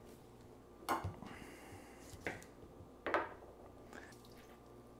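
A fresh lime being handled and squeezed by hand over a glass bowl, its juice dripping in, with three short sharp sounds about one, two and three seconds in.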